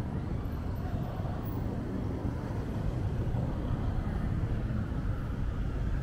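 Street traffic noise: a steady low rumble of vehicle engines and tyres in slow, congested traffic.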